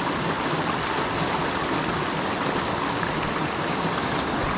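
Small creek flowing: a steady, even rush of water.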